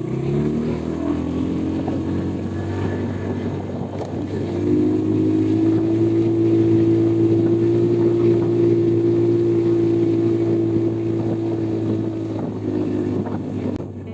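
Motorcycle engine accelerating, its pitch rising over about the first second, then running louder at a steady speed from about four and a half seconds in.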